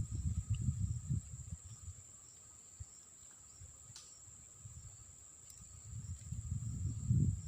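Insects trilling in a steady, high-pitched drone, with low rumbling bursts at the start and again near the end.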